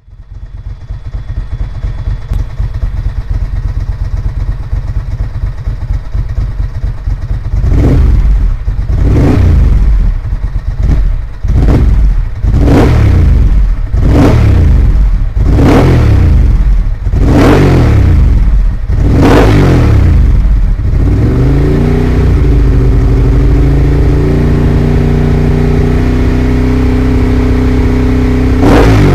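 Honda RC30 motorcycle's V4 engine idling, then blipped a dozen or so times in quick succession, each rev rising and dropping back. It then rises once more and holds a steady fast idle.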